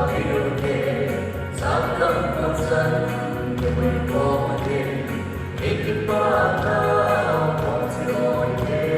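Music: a choir singing a song over instrumental accompaniment with a steady bass line.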